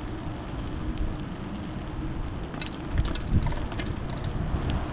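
Bicycle rolling over wet pavement, with steady tyre and wind noise. About three seconds in come two low bumps, the wheels going over the two rails of the track, among a run of sharp clicks and rattles.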